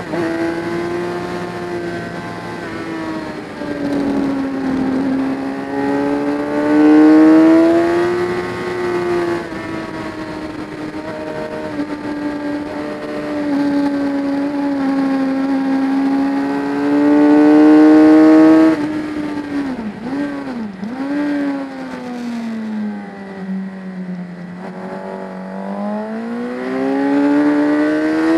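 Motorcycle engine heard from onboard, its revs rising and falling through the corners, with a couple of quick downshift blips about two-thirds of the way in, then pulling hard and climbing in pitch near the end.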